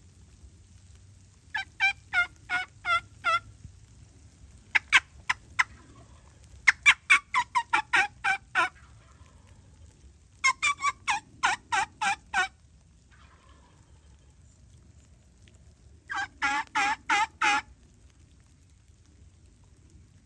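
Wild turkey hen yelping: five runs of short, loud notes, several to a second, each note dropping in pitch, with pauses between the runs.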